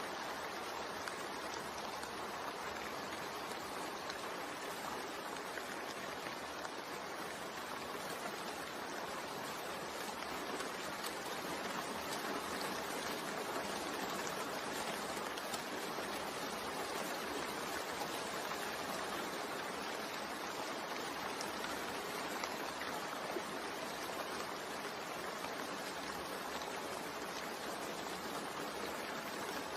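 Steady rainfall, an even hiss of rain with fine pattering drops and no change in intensity.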